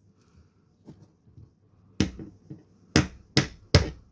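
Sharp knocks of a knife being struck into a log to split it for firewood. After a quiet couple of seconds come four hard strikes, the last three about half a second apart.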